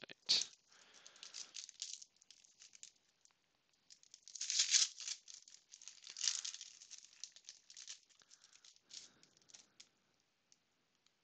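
Foil wrapper of a Panini Prizm basketball card pack crinkling and tearing as it is ripped open, with a sharp crack about a third of a second in and the loudest crinkling around four to five seconds in. Softer rustling near the end as the cards are slid out and handled.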